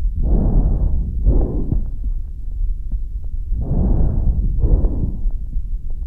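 Breath sounds heard through a stethoscope: two breaths, each a soft hiss in and a soft hiss out, with the pairs about three and a half seconds apart, over a steady low rumble of chest-piece and body noise.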